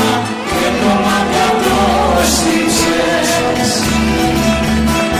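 Live Greek rebetiko music: a band playing with a choir singing over a steady beat.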